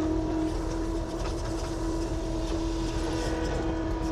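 Avant compact loader running steadily, a low engine rumble under a steady whine.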